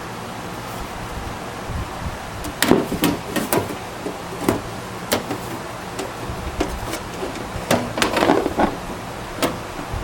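Scattered sharp clicks and knocks of hard parts being handled, in two clusters about three seconds in and again about eight seconds in, over a steady low hum.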